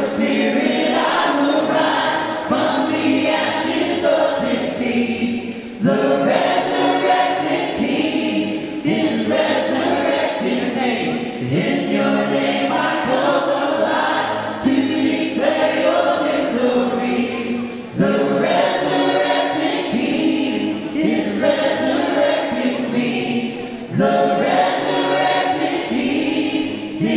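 Group of voices singing a worship song together, phrase after phrase, with a fresh phrase starting about every six seconds.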